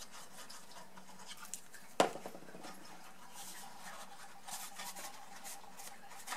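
A plastic liquid-glue bottle set down on the craft mat with a single sharp knock about two seconds in, amid soft rustling and scraping of folded card stock being pressed together by hand.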